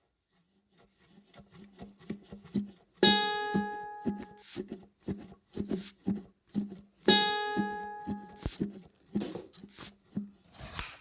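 Instrumental music fading in: a steady run of short plucked notes, with a bright, ringing note struck every four seconds and light high ticks keeping time.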